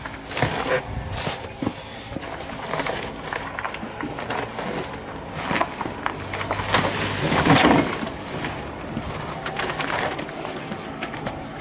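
A pigeon cooing, over scattered knocks and scrapes as a heavy metal lathe is shifted about, with the loudest clatter about seven and a half seconds in.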